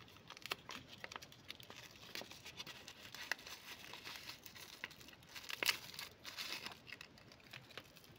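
Faint crinkling and rustling of a small cardboard box being opened by hand and a small plastic bag of powder being pulled out and handled, with scattered light clicks. The loudest crinkle comes a little past halfway.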